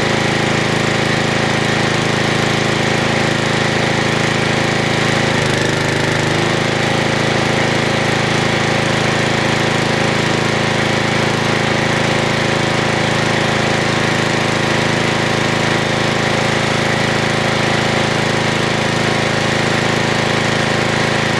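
Generator plant running steadily while it powers a half-horsepower bench grinder, a loud continuous machine sound with a brief change about five and a half seconds in.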